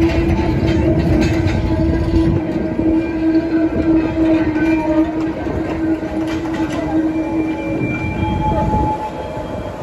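A slow goods train of steel hopper wagons and a brake van rolling past, the wheels rumbling over the rails with a few clanks. A steady droning tone runs under it and stops near the end.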